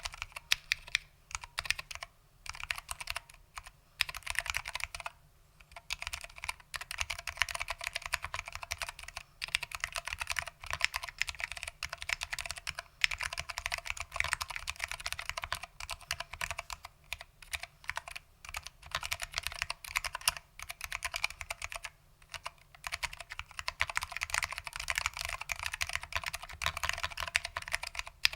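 Typing on a Lunar AEK 65 mechanical keyboard with foam-damped SKCM Orange Alps switches: a rapid, dense stream of key clicks with a few brief pauses.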